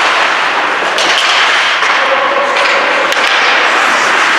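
Ice hockey play on a rink: hockey sticks and puck cracking sharply a few times, about one, two and a half and three seconds in, over a steady loud hiss of skates on the ice and rink noise.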